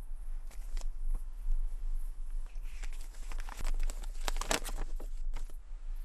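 A folded paper note being handled and opened: crinkling and rustling, densest and loudest about four and a half seconds in, over a low steady hum.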